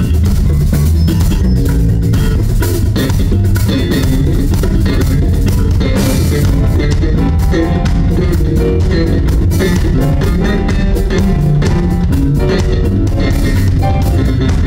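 Live band playing loudly: drum kit driving the beat with bass guitar, guitar and hand percussion.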